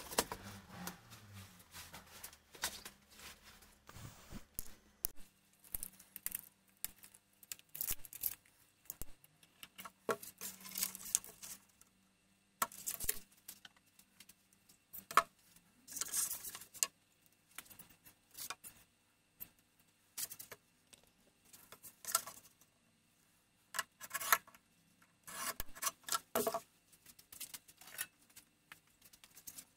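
Short, separate scraping and rubbing noises, a few seconds apart, from a board and tools being handled on a workbench.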